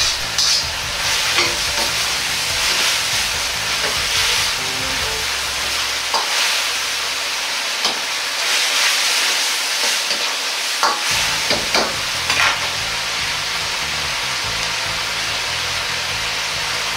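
Beef, glass noodles and green beans sizzling in sauce in a wok. A metal ladle stirs them, and it scrapes and knocks against the wok a few times in the middle.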